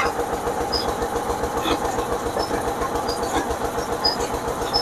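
Mustard-oil expeller (screw press) running steadily as it crushes mustard seed, a mechanical drone with a fast, even pulse and a few light ticks.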